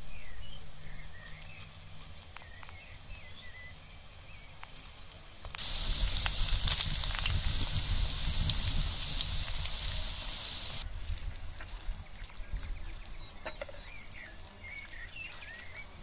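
Strips of beef heart sizzling and crackling in hot oil in a wok over fried onions, starting suddenly about five seconds in and stopping abruptly about five seconds later. Small birds chirp at the start and again near the end.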